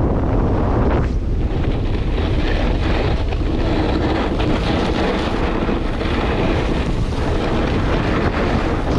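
Wind buffeting the microphone of a camera worn while skiing at speed, over the hiss and scrape of skis carving turns on packed snow.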